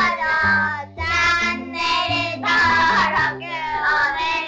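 Outro theme song: a high voice singing a bouncy tune over backing music with a bass line stepping between notes.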